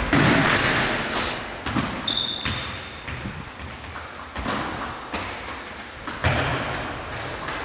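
Indoor football game in a sports hall: the ball being kicked and bouncing on the floor with an echo, and sports shoes squeaking sharply on the wooden floor about six times.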